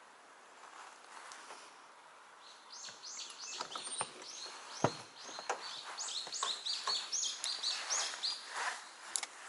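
A songbird singing a long run of quick, repeated high notes that begins a few seconds in, with a few sharp knocks, the loudest about five seconds in.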